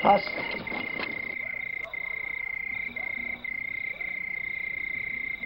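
Night-time frog chorus: a steady high trilling that dips briefly about once a second.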